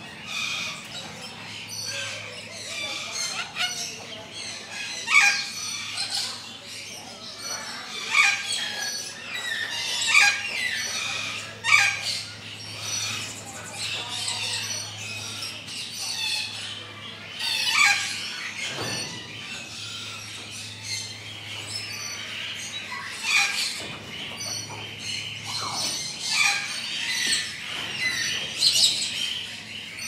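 Many birds calling at once in a dense, overlapping chorus of shrill squawks, squeals and chirps, with single louder, sharper calls standing out every few seconds.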